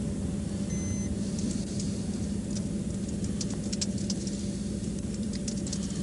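Steady low hum of an idling patrol car, with scattered light clicks and ticks over it. A brief electronic beep sounds just under a second in.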